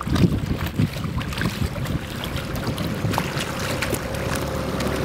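Evinrude outboard motor running at low speed, with wind buffeting the microphone and water lapping. About two seconds in the gusts ease and a steady engine hum carries on.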